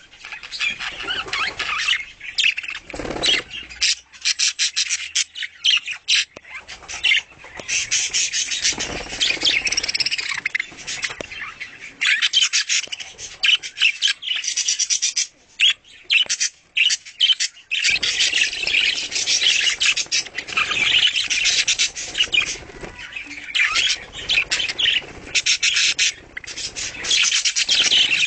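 Budgerigars chattering: a dense, nonstop run of fast chirps and clicks.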